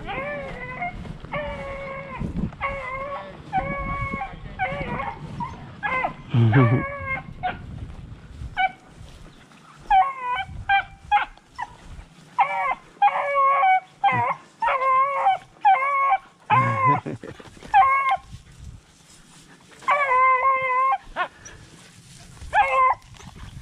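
A pack of rabbit-hunting beagles baying and howling, many drawn-out calls in quick runs with short pauses between. These are dogs giving voice at the end of a chase.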